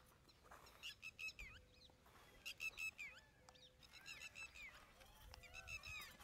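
Several birds calling: clusters of short, rapidly repeated high notes mixed with many small chirps, starting about a second in and growing busier.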